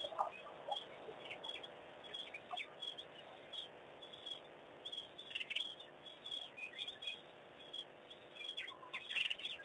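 A flock of birds chirping: many short, high chirps overlapping, busier about halfway through and again near the end.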